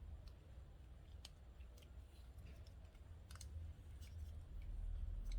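Faint, irregular clicks and taps of hands handling battery cell packs and adhesive tape, over a low steady rumble.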